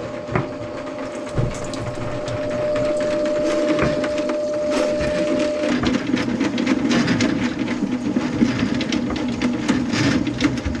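Motorized drain snake running, its spinning cable rattling and clicking steadily in the kitchen sink drain line. A steady hum runs under it and stops about six seconds in.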